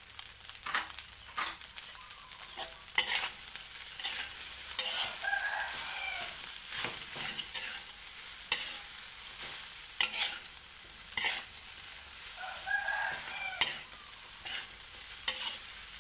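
Metal spatula scraping and clanking against a wok while stir-frying rice, over a steady frying sizzle. A rooster crows twice in the background, about five seconds in and again later.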